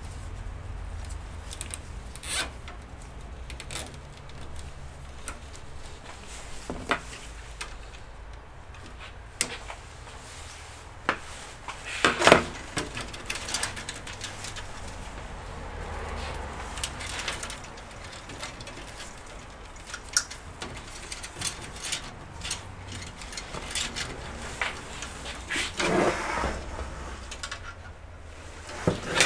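Cables being pulled and handled against the metal of an open PC case: scattered clicks, knocks and rubbing, with the loudest knock about twelve seconds in, over a low steady hum.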